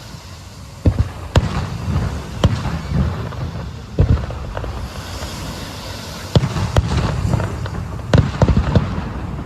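Aerial fireworks bursting: a series of sharp booms, about nine, coming irregularly and bunching closer together near the end, over a low rumbling background.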